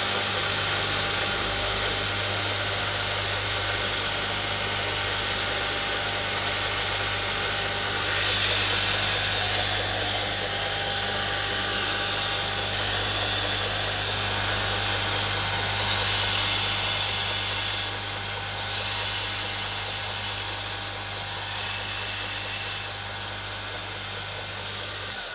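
Homemade 2x72 belt grinder running: a steady motor hum under the hiss of the abrasive belt. About two-thirds of the way through come three louder, hissier stretches of a few seconds each, then the noise drops back somewhat.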